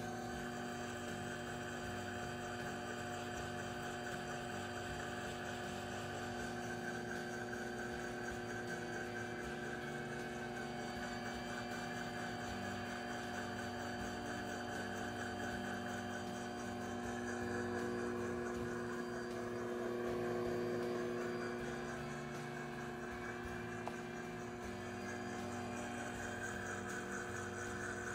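ChefWave Milkmade nut milk maker running its self-clean cycle: a steady motor and pump hum with a few held tones, swelling a little past the middle.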